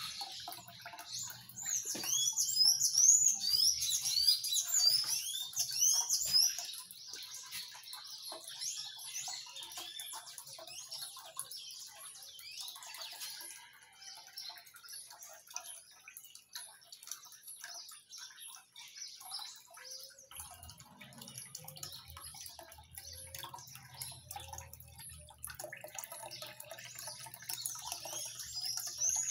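Water trickling and dripping as it falls from the top of a homemade cement-column fountain into its plastic basin. A small bird chirps loudly and rapidly for a few seconds near the start. A low hum comes in about two-thirds of the way through.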